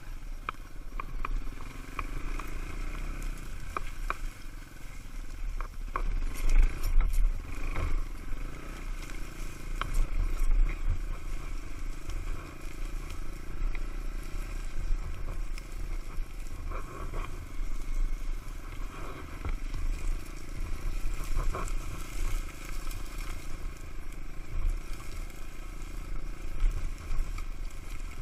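Dirt bike engine running as the bike is ridden over rough forest ground, with a heavy low rumble of wind and jolts on the helmet-mounted microphone. Frequent clicks, scrapes and crackles come from the bike bouncing over the track and brushing through dry grass.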